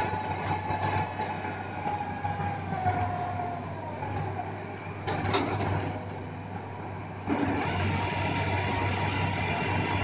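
XCMG rotary drilling rig's diesel engine and hydraulics running, with a whine that slides down in pitch a few seconds in and comes back higher as the machine gets louder about seven seconds in. A sharp knock sounds about five seconds in.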